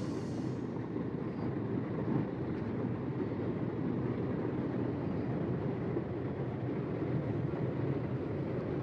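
A car driving through a flooded street, heard from inside the cabin: a steady low rush of engine, tyres and water sloshing under the car.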